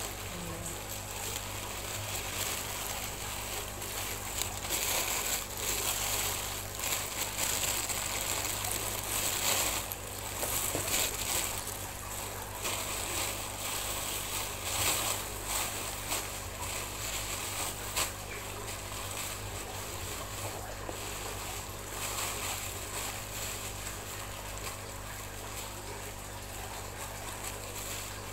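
Clear plastic bag rustling and crinkling as hands work fried fish heads inside it, with a steady low hum underneath.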